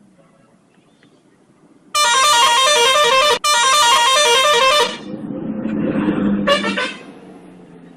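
Indonesian bus 'telolet' horn, a multi-tone musical horn, playing a quick stepping tune for about three seconds. A swell of noise follows, and a short second burst of the horn comes near the end.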